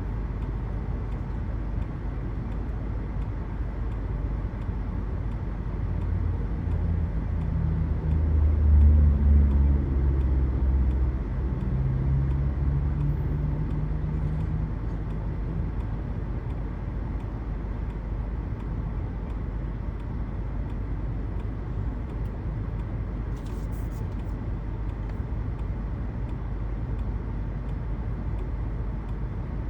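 Steady low rumble of strong pre-typhoon wind on the microphone, with a motor vehicle passing: its engine swells about six seconds in, is loudest near nine seconds and fades out a few seconds later.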